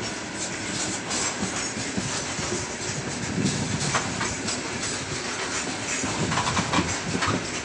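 Loaded freight gondola wagons rolling past close by. Their steel wheels rumble steadily on the rails, with scattered sharp metallic clanks. The heavy freight train is gathering speed.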